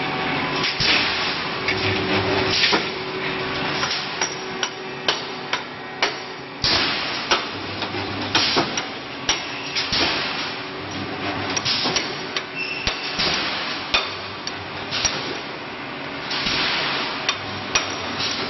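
Wire mesh welding machine running: repeated sharp metallic clacks, one to two a second at an uneven pace, with short bursts of hiss between them.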